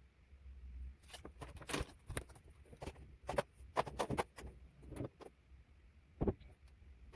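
A run of irregular sharp clicks and knocks, a dozen or so over several seconds, with a loud single knock near the end.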